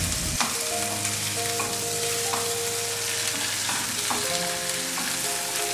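Chicken frying in ghee, oil and spice paste in a non-stick frying pan, lightly browned on each side: a steady sizzle. A few light knocks come as a wooden spatula turns the pieces.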